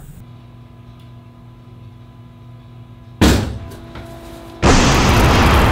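A quiet held musical chord, then a sudden bang about three seconds in that fades over a second. A loud explosion sound effect bursts in near the end and carries on.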